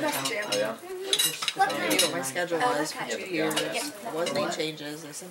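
Cutlery scraping and clinking on plates and dishes, in scattered sharp clicks, over indistinct chatter of several people at the table.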